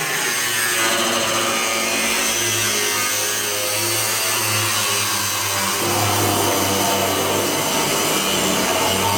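Angle grinder cutting through the steel wall of a 250-gallon home oil tank, running continuously with its motor hum wavering in pitch as the disc bears on the metal.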